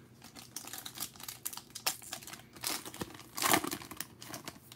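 Foil wrapper of a Panini Prizm trading card pack being crinkled and torn open by hand: a rapid run of crackles, loudest about three and a half seconds in.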